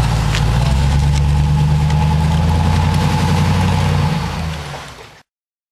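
2002 Cadillac Escalade's V8 engine and exhaust driving away at low speed, a steady low drone that fades as the truck moves off and then cuts off suddenly.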